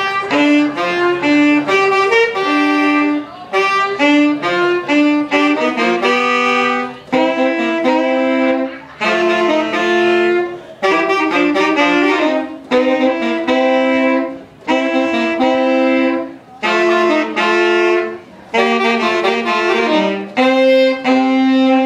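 Two saxophones playing a jazz duet in short phrases with brief breaks between them, ending on a long held note.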